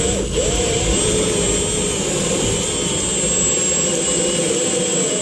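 Drill spinning a scrub brush attachment inside a garbage disposal, its motor whine wavering in pitch as the brush drags against the walls, with tap water running.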